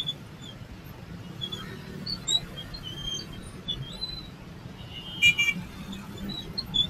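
Motorbike engines idling in stopped city traffic as a steady low rumble, with scattered short high chirps over it. A brief loud high beep, like a horn, comes about five seconds in.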